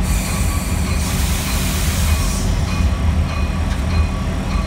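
Locomotive heard from inside its cab as it rolls slowly along the track: a steady low engine drone throughout, with a hiss over roughly the first two and a half seconds.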